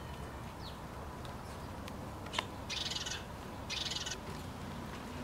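A single sharp chirp, then two short, high-pitched buzzy calls about a second apart from a small animal, over a low steady background hum.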